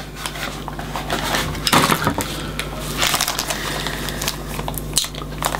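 Clear plastic wrapping crinkling and rustling as a boxed portable cassette player is handled and lifted out, a run of small irregular crackles.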